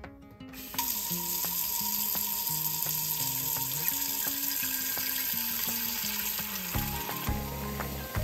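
Tap water running in a strong stream into an enamelled pot in a kitchen sink, a steady hiss that starts about a second in.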